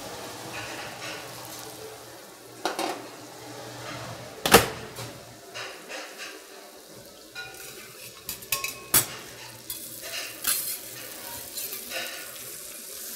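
A hot metal pan handled at a convection oven and set down on a steel counter: a sharp metallic clank about four and a half seconds in, then scattered knocks and clinks of pan and spoon, with butter sizzling in the pan.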